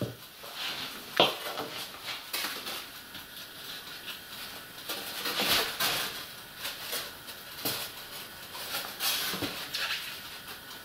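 Rigid foam sheets being slid and pressed against each other and the board by hand, giving irregular scraping and rustling with a few light knocks.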